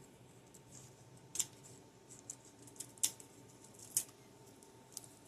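Scissors snipping: a few short, sharp snips roughly a second apart.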